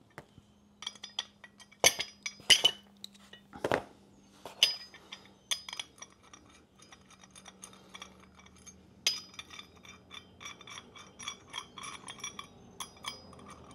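Metal clicks and clinks of a 4 mm Allen key working two small bolts loose on an aluminium adjustable motorcycle side stand. A few sharper clinks come in the first half, then long runs of quick light ticks.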